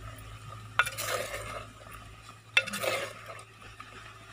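Steel spoon stirring and scraping chicken and flat-bean curry in a clay pot, with two sharp knocks of the spoon on the pot, about a second in and again past halfway, each followed by a short scrape.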